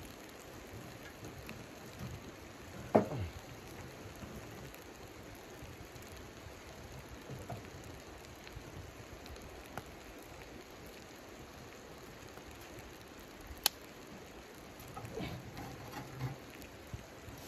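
Wood-burning camp stove with its firebox open: a steady faint crackle and patter from the fire, a sharp knock about three seconds in and a single snap later on. Near the end, a split log scrapes and knocks as it is pushed into the firebox.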